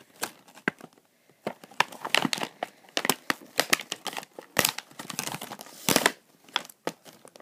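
Clear plastic packaging crinkling and crackling as it is handled and pulled open, in quick irregular crackles with a short lull about a second in.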